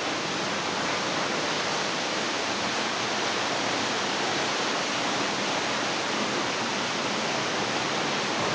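Small waterfall splashing into a rock pool: a steady, even rush of water.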